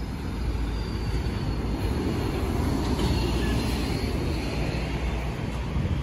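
Road traffic: a city bus passing on the adjacent road, a steady low engine and tyre rumble that swells through the middle, with a faint high whine slowly falling in pitch.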